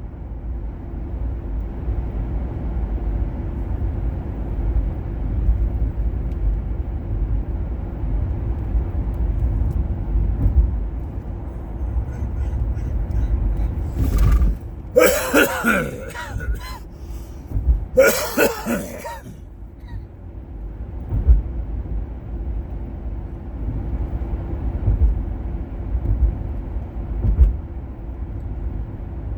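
Steady low road and engine rumble of a car being driven, with a faint steady hum. Twice about halfway through, a person coughs or clears the throat.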